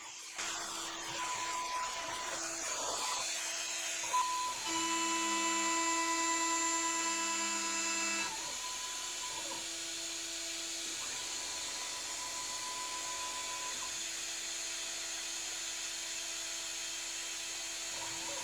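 CNC milling machine cutting aluminium: the spindle runs with a steady high whine, while lower motor tones start and stop every few seconds as the axes move. A hissing cutting noise fills the first few seconds.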